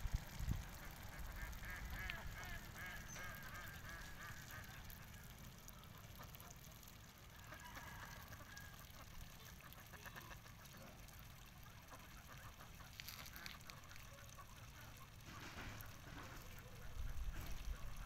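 A flock of ducks quacking faintly in short runs of calls, about two seconds in and again around eight seconds in, over low wind rumble on the microphone.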